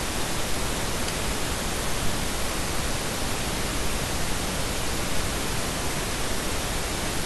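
Steady, even hiss with no other clear sound.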